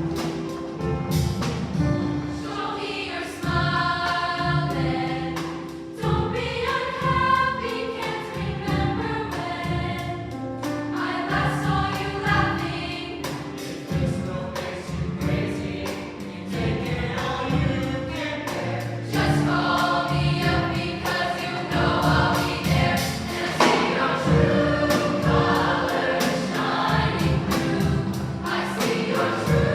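A choir singing over accompaniment with a steady beat.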